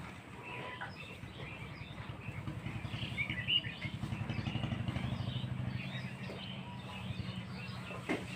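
Many small birds chirping over the steady, fast-pulsing low rumble of a running engine. A single sharp click comes near the end.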